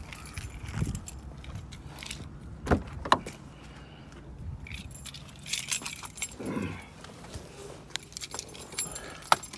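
Keys jangling on a key ring with sharp clicks and clinks, in several clusters about three, six and nine seconds in.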